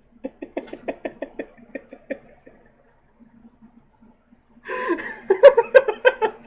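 A person laughing in rapid pulses: a soft chuckle for the first two seconds, then a louder burst of laughter near the end.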